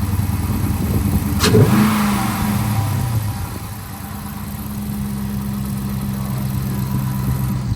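Dodge Charger R/T's 5.7-litre Hemi V8, fitted with a JLT cold air intake, idling, with one quick throttle blip about a second and a half in that rises and falls back to a steady idle.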